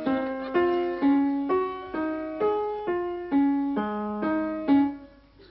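Piano playing a simple melody of separate struck notes, about two a second, stopping shortly before the end.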